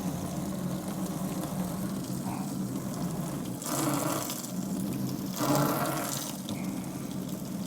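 Beet-juice tire ballast gushing out of a tractor tire's open valve stem hole and splashing into a bucket, swelling louder twice midway, over a steady low hum.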